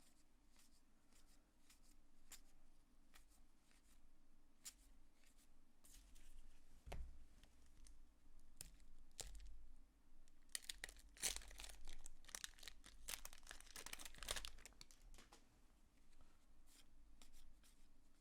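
Faint ticks of baseball cards being handled, then, about ten seconds in, a few seconds of a card pack's wrapper being torn open and crinkled.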